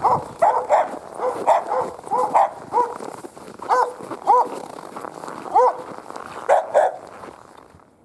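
A dog barking repeatedly, a dozen or so short barks at an uneven pace, until the sound stops abruptly near the end.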